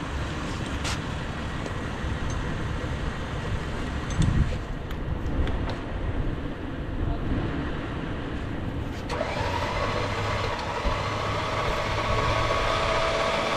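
Vehicle engines idling with a steady low rumble. About nine seconds in, a steadier, brighter mechanical hum with faint tones sets in abruptly.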